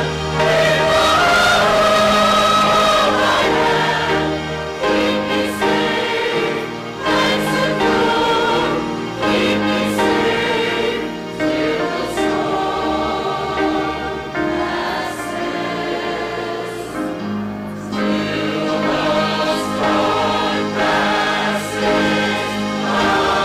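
A choir singing in held chords that change every second or two.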